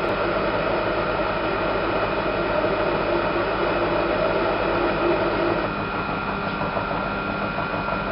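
Cosmos metal lathe running under a roughing cut on round bar stock: steady motor hum and cutting noise with a few fixed tones through it.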